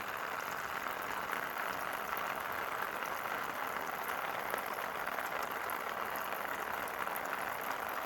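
Water pouring steadily out of a small hole poked in a waterlogged air-conditioning duct, an even gushing stream.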